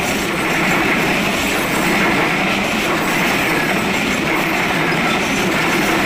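Passenger coaches of a Bangladesh Railway train rolling past close by: steel wheels running over the rails, a loud steady noise without a break.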